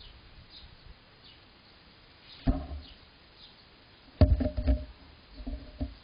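Faint, repeated short falling chirps of a small bird in the background. Sudden loud thumps and rattling at close range, once about two and a half seconds in and again in a cluster from about four seconds, as a Eurasian magpie moves about right beside the camera.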